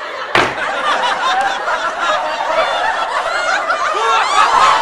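A crowd laughing, many voices overlapping, starting abruptly just after a sharp click.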